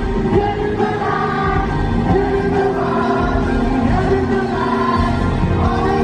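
Live rock band playing, with a male lead voice singing long held notes over electric guitar and a full band, recorded from the audience in a large hall.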